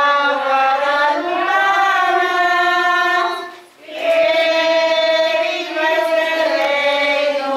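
A group of voices singing together in two long, drawn-out phrases, with a brief breath between them a little over three seconds in.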